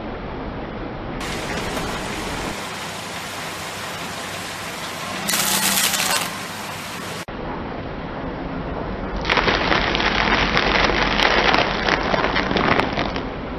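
Car tyre rolling over and crushing a crocodile figure made of dried leaves: dry crackling and crunching, a short burst about five seconds in and a longer, louder stretch from about nine seconds until shortly before the end.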